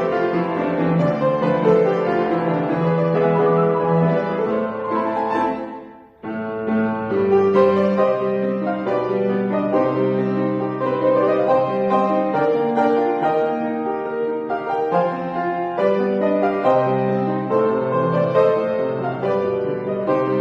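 Solo piano playing a brisk arrangement. The music breaks off for a moment about six seconds in, then carries on.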